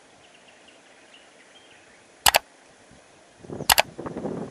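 Two sharp double clicks about a second and a half apart: the mouse-click sound effects of a subscribe-button animation. A short burst of rough rumbling noise comes with the second pair of clicks.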